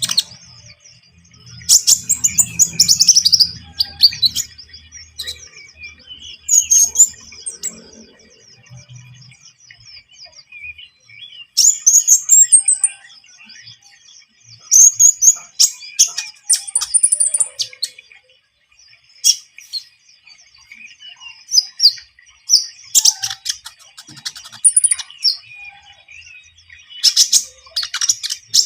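Konin songbird singing actively in loud, chirpy phrases that come in bursts every few seconds, with pauses between them, over a faint steady high background hum.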